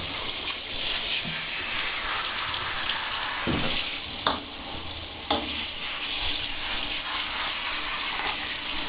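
Handheld shower head spraying water onto a wet wire fox terrier's coat in a bathtub, a steady hiss broken by three short sounds near the middle.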